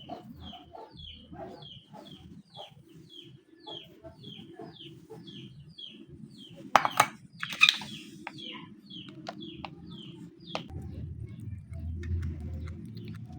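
A rapid series of short, high-pitched peeping calls from a small animal, about two to three a second, each falling in pitch, which stop about nine seconds in. A few loud knocks come near the middle, over a low rumble that gets louder near the end.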